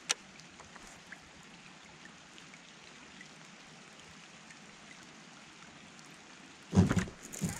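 Faint steady patter of light rain on the water surface, with a few soft ticks and a sharp click at the start. About seven seconds in comes a sudden loud thump, then a smaller one.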